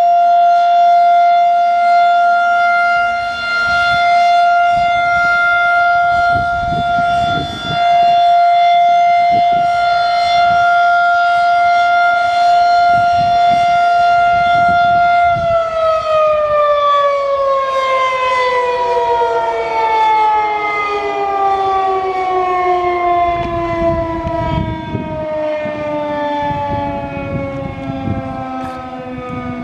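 Federal Signal 2001-SRNB outdoor warning siren sounding its steady alert tone. About halfway through it begins to wind down, its pitch falling slowly. A second, steady siren tone carries on underneath.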